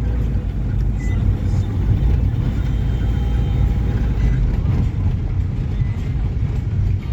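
Steady low rumble of a road vehicle on the move.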